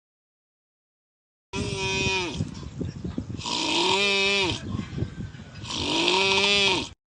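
A person doing exaggerated, voiced snoring: three drawn-out snores, each rising and then falling in pitch, starting after about a second and a half of silence.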